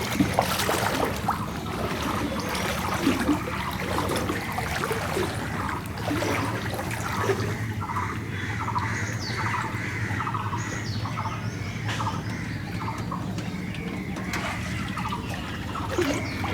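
Floodwater sloshing and trickling, with birds chirping.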